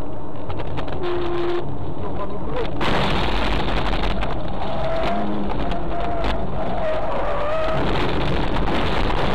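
Steady road noise and engine hum inside a moving car, with tyre hiss on a wet road that grows louder about three seconds in.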